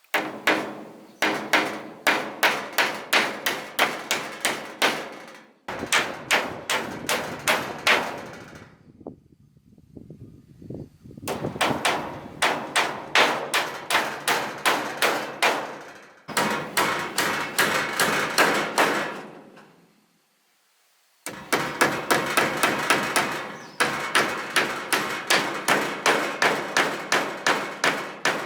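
A hammer driving nails into wooden boards, in fast runs of about four to five blows a second with a slight ring to each strike. The runs are broken by short pauses and start abruptly.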